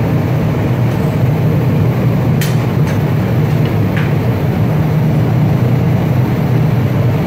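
Steady low rumble of glassworks machinery and ventilation, even throughout, with two light clicks a few seconds in.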